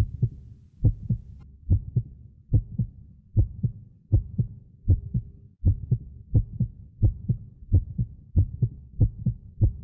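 Heartbeat sound effect: a steady lub-dub of paired low thumps, a little under one pair per second, over a faint low drone.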